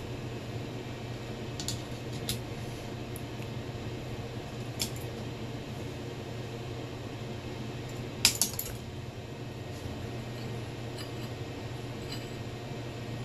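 Pliers clicking and clinking against a turbocharger's metal centre section as its core is taken apart: a few light clicks, then a quick cluster of louder clinks about eight seconds in, over a steady low hum.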